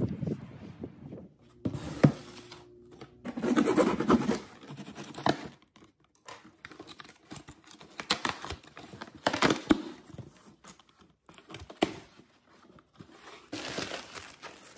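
A cardboard shipping box is opened by hand in a series of rustling, scraping bursts: packing tape tearing and cardboard flaps handled, then plastic wrapping crinkling near the end. There is a sharp thump about two seconds in.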